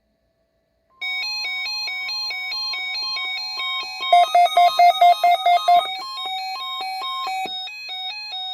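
NOAA Weather Radio warning alarm: the steady 1050 Hz tone, starting about a second in, with a weather-radio receiver's alert alarm beeping over it in a quick stepping pattern of alternating pitches. About three seconds in, a louder string of short beeps, about four a second, runs for nearly two seconds. Together they signal the weekly test alert being received.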